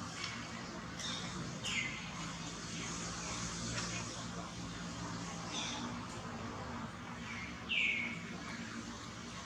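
Short high-pitched animal calls, each a brief falling chirp, coming a few seconds apart; two come close together about three quarters of the way in and are the loudest, over steady outdoor background noise.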